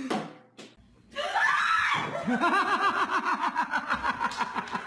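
A person's short rising cry, then a long run of fast laughter, about six bursts a second.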